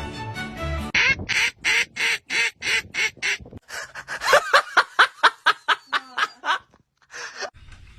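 An animal calling in a rapid series of short, evenly spaced calls, about three to four a second. The calls start about a second in, quicken after a brief break, and end with one last short call near the end.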